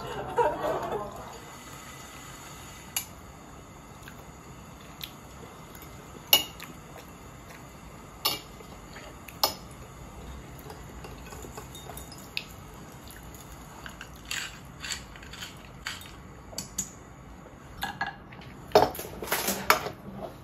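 Metal knife and fork clinking and scraping on a ceramic plate: sharp single clinks every second or two, then a quicker run of clinks near the end.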